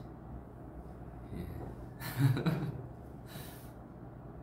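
A man's short voiced sound about two seconds in, a gasp- or laugh-like vocal burst, followed by a breathy exhale about a second later.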